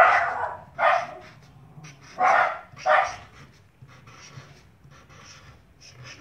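A dog barking: four short barks in the first three seconds, two close pairs, then it stops.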